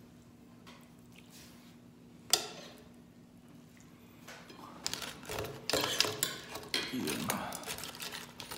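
A metal ladle scooping coconut-milk crab sauce from a stainless steel pot, with a single sharp clink about two seconds in. From about five seconds in, busier clinking, scraping and wet handling sounds as the crab pieces are handled in the pot.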